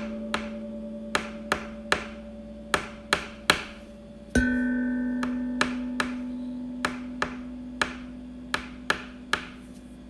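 A single pitched note, struck about four seconds in, rings on and slowly fades, over a run of sharp clicks about one or two a second.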